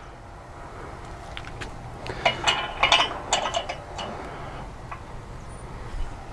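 Light metallic clinks and taps of a gate latch being handled and set against the metal gate post, a run of short clicks thickest in the middle few seconds, some with a brief ring.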